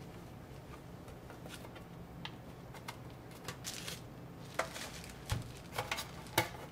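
Light clicks and taps of small laptop parts and a precision screwdriver being handled during MacBook Air reassembly, with a few sharper clicks in the second half, over a low steady hum.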